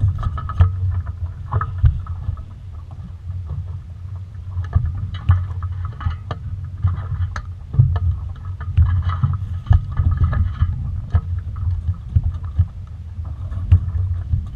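A small sailing dinghy under way: water washing against the hull and a steady low rumble of wind on the microphone, with frequent irregular knocks and taps from the boat.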